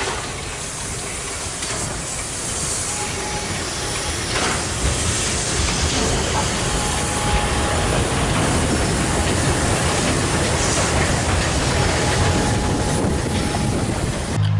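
Double-headed steam train passing close by, led by ČSD class 464 tank locomotive 464.202 with a second steam locomotive behind: steady hissing steam mixed with the rattle and clatter of wheels and running gear on the rails, with a faint high tone coming and going.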